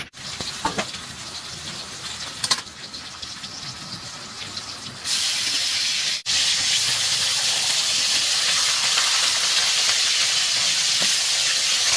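Fish sizzling as they fry in hot oil in a pan: a quieter hiss with a couple of sharp clicks at first, then a loud, even sizzle from about five seconds in.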